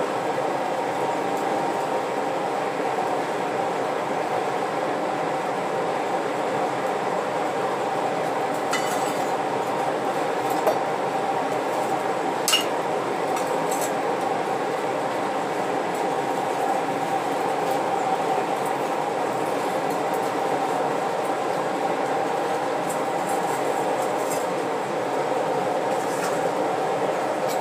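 Charcoal forge fire under a forced-air blower, running with a steady even roar. Several sharp metal clinks sound around the middle as the tongs handle the part being heated for tempering.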